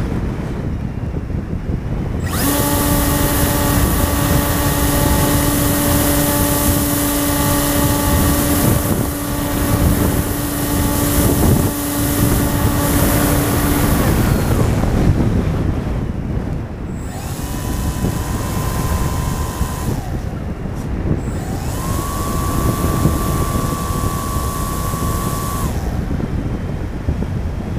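Brushless electric motor and propeller of a radio-controlled FPV plane, heard through the onboard camera's microphone over steady wind rush. A steady whine under power runs from about two seconds in to about fourteen seconds, then cuts off. A higher whine follows twice more for a few seconds each as the throttle is opened again.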